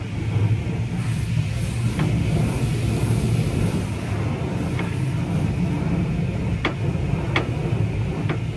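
A steady low mechanical rumble with a hiss above it, like a motor running, with a few short sharp clicks, most of them in the second half.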